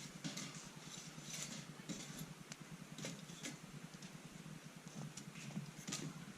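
Wood campfire crackling: irregular small pops and snaps over a soft steady rush of burning.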